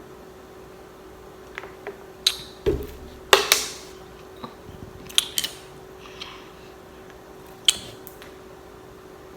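Handling and eating sounds at a meal: a scatter of sharp clicks, taps and short scrapes, loudest a little over three seconds in, over a steady low hum.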